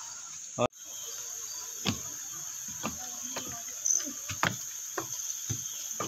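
Steady high-pitched insect chorus of tropical forest, dropping out for an instant under a second in, with scattered short knocks and scuffs and faint snatches of voices.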